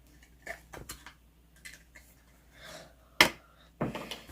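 Scattered light clicks and taps of small objects being handled, with one sharper click about three seconds in and a short cluster of clicks near the end.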